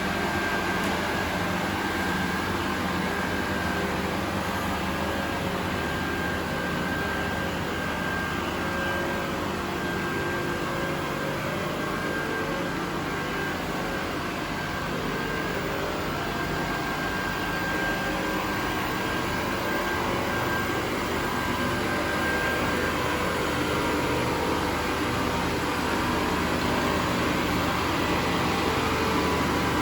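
BOTTERO Variant 810BCS vertical glass edging machine running, its 10 grinding spindle motors giving a steady mechanical hum with a thin high whine.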